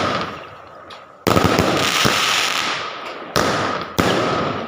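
Fireworks going off: a loud bang about a second in, followed by a couple of seconds of dense crackling, then two more sharp bangs near the end, each tailing off.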